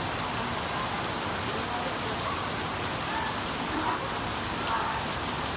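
Steady, persistent rain falling, an even continuous hiss with no breaks, with faint indistinct voices in the background in the second half.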